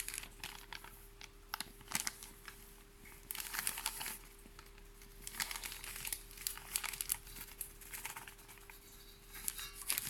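A bag of glutinous rice flour crinkling in about six short bursts of rustling as the flour is scooped out and measured, three portions in all.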